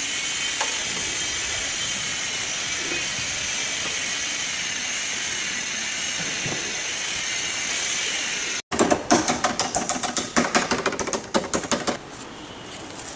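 A steady hiss, then after a sudden cut, a quick, uneven run of hammer blows on sheet-metal body panels, ringing slightly, that stops near the end.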